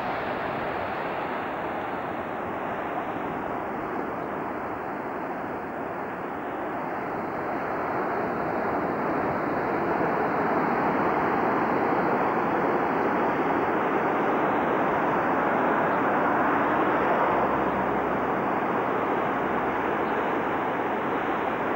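Wind rushing over the camcorder microphone together with rough, wind-blown surf breaking on a rocky shore: a steady hiss that grows a little louder about a third of the way in.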